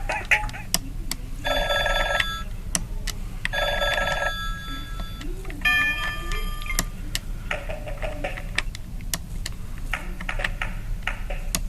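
Cisco IP Phone 7940G desk phone playing ringtones: short rings about a second long with gaps between them. The first two rings share one trilling pattern, and the ring changes to a different tone pattern about six seconds in and again a little later, as different ringtones are selected.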